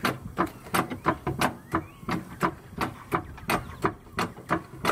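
Hydraulic floor jack being pumped by its handle, a regular clack about three times a second as it lifts the car until the wheel is off the ground.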